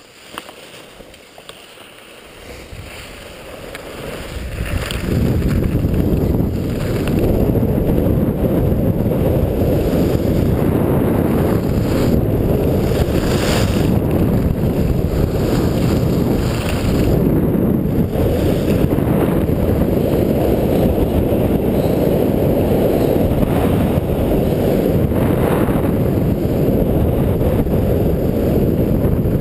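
Wind rushing over the camera microphone of a skier going down a groomed piste: a loud low rushing that builds over the first five seconds as speed picks up, then holds steady. Brief scrapes of skis on the snow come through now and then.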